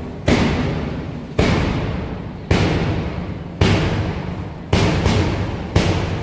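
Heavy thuds in a slow, even beat, six strokes about a second apart, each dying away before the next.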